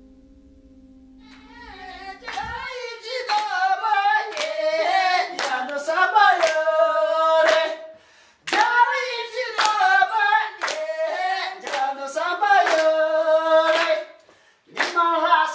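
A man sings loudly in a small room while hands beat time. There are two short breaks in the song. A steady held musical tone underneath cuts off about two and a half seconds in.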